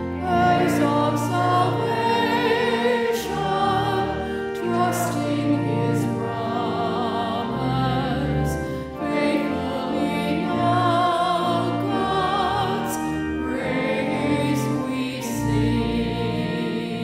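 Entrance hymn of a Catholic Mass: voices with vibrato sing over sustained low instrumental chords.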